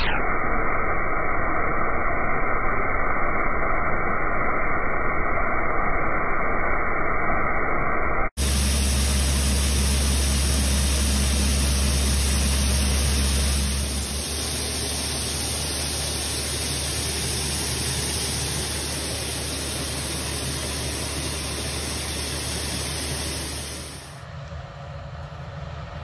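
Shelled corn pouring through a metal grate: a steady rushing hiss over a low machinery hum. It sounds muffled for the first eight seconds, cuts off abruptly and resumes, and turns quieter near the end.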